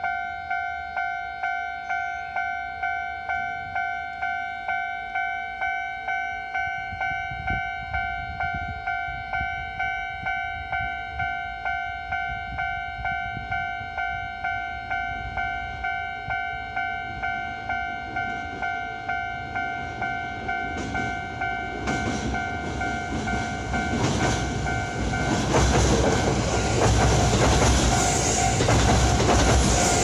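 Level crossing warning bell ringing steadily, about two strikes a second. A red-and-white Kintetsu electric train approaches and runs past close by, its rumble and clatter over the rails growing from about two-thirds of the way through until it nearly covers the bell.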